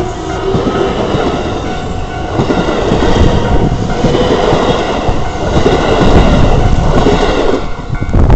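A train passing close by at a level crossing, loud and continuous, easing briefly near the end.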